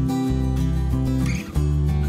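Background music led by guitar, with notes changing about every half second over a low bass line.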